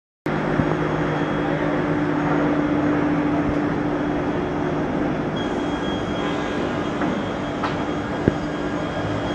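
Single-shaft multi-blade circular rip saw running and ripping a sheet of 25 mm plywood into strips, a steady mechanical drone with a constant hum and a high whine. It cuts in abruptly just after the start, and a couple of sharp knocks come near the end.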